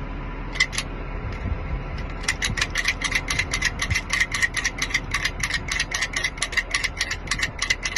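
A locksmith's pick gun snapping against the pins of a lock cylinder to pick it open. Two clicks come a little under a second in, then from about two seconds in a fast, even run of sharp clicks, about six a second.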